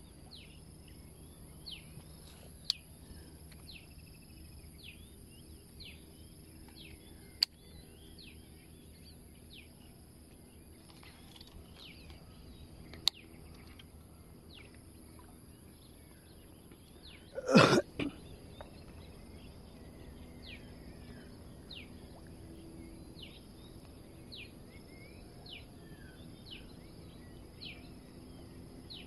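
A bird repeating a short, falling whistled note about once a second over a steady high insect drone, with a few sharp clicks. About two-thirds of the way through comes one brief loud burst of noise.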